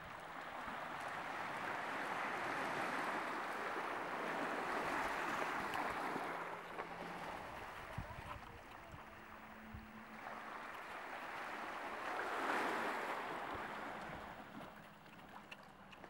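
Small sea waves washing onto a pebble beach: a soft rushing that swells twice and fades near the end.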